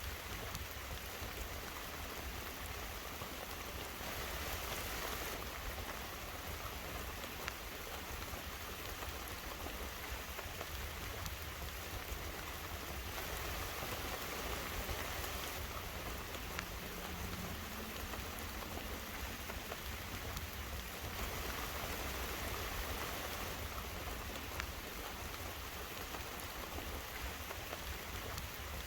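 Steady rain heard from inside a car, with faint scattered ticks of drops, swelling a little a few times.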